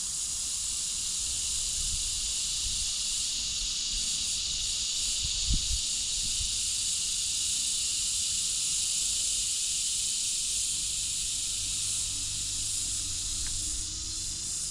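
Steady high-pitched hiss of an insect chorus, with a brief low thump about five and a half seconds in.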